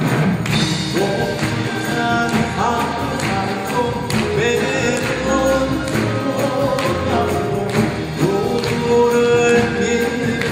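A male Korean folk singer (sorikkun) sings long, wavering held notes into a microphone, accompanied by a Korean traditional gugak orchestra of gayageum zithers, bamboo flutes and regular percussion strokes.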